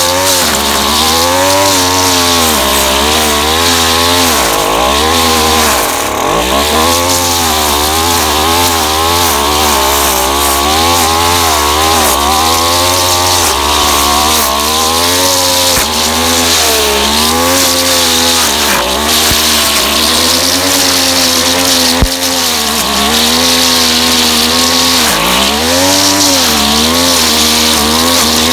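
Featherlite two-stroke string trimmer running hard, its engine pitch rising and falling over and over as the spinning line cuts through fence vines. One sharp crack stands out about three-quarters of the way through.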